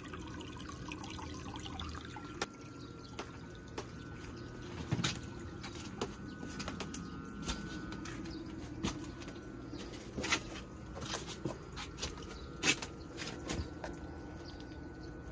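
Water running and trickling from a pump-fed return pipe into a pond, with scattered sharp clicks and taps over it.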